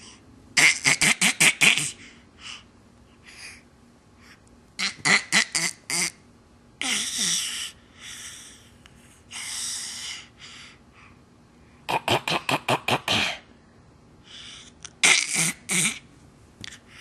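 A child clearing the throat over and over: four bursts of quick rasping pulses, with two longer breathy rasps between them.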